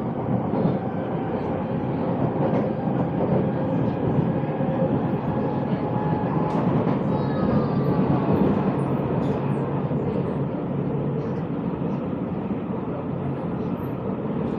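Singapore MRT train in motion, heard from inside the carriage: a steady rumble of wheels on rail and running noise.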